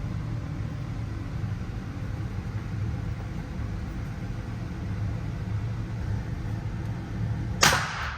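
Steady low rumble, then a single sharp bang near the end: a Beretta 92 pistol being fired.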